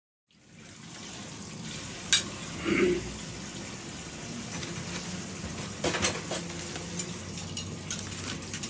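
Kitchen sounds: a steady hiss with a few sharp clinks of dishes or utensils, about two seconds in, around six seconds in, and near the end.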